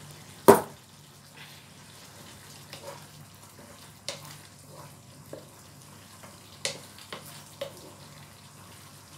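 Squid adobo simmering in a frying pan over a gas flame, a steady low sizzle. A single sharp knock comes about half a second in. From about four seconds on, a wooden spatula stirs the squid and taps against the pan several times.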